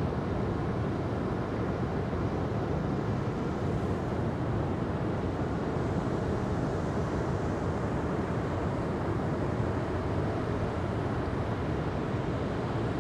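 Ocean surf, a steady deep rushing wash with no distinct breaks or crackles standing out.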